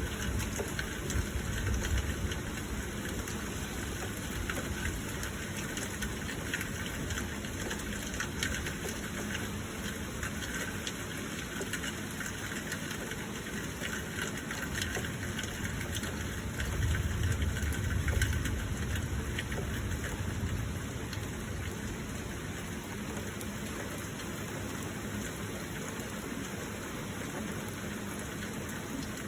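Steady heavy rain, with a low rumble swelling up about seventeen seconds in and fading a couple of seconds later.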